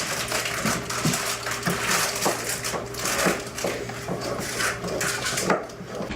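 Paper cupcake liners crinkling and rustling as they are handled and pressed into a muffin tin, with irregular light knocks.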